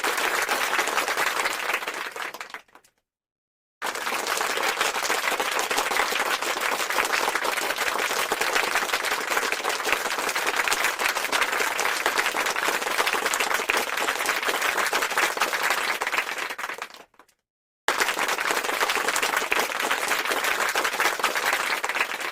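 Applause: many hands clapping densely in three separate takes. The first fades out a little under three seconds in, the second starts about a second later and fades out after about thirteen seconds, and the third begins about eighteen seconds in.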